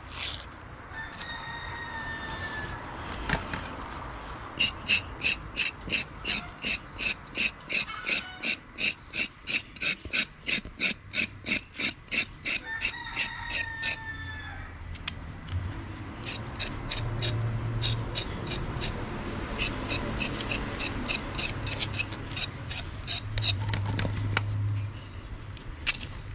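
Kitchen knife blade scraping the skin off a carrot, in quick even strokes about two to three a second, in two runs with a short pause between them.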